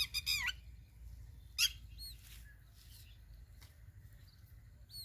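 A hatching chick peeping: a quick run of high, falling peeps at the start, another peep about a second and a half in, and fainter ones near two seconds and at the very end, over a low steady hum.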